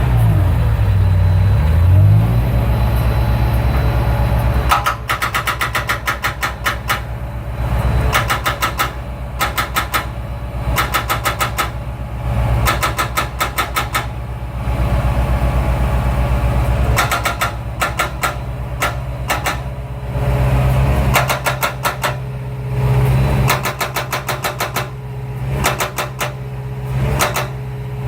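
A machine engine running steadily, with a powered breaker hammering concrete in rapid bursts of a few seconds each, starting about five seconds in, as the concrete slab is broken out.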